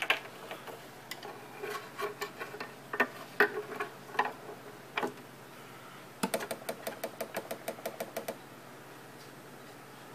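Scattered clicks and knocks of handling inside an antique weight-driven shelf clock as a nylon weight cord is threaded over its pulley. About six seconds in comes a quick, even run of clicks, about eight a second, lasting around two seconds.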